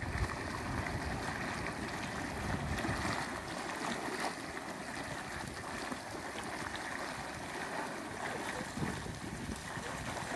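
Mud pot of boiling volcanic mud bubbling and gurgling, with a steady rushing noise beneath it.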